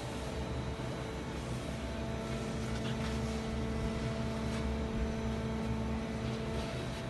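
Makino A55 horizontal machining centre running, a steady mechanical hum with several steady tones, one lower tone coming in about a second in and fading near the end, and a few faint ticks.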